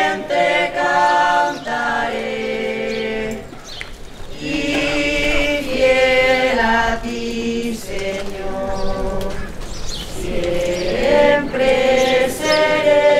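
Choir singing a slow hymn in harmony, in long held phrases with short breaks between them.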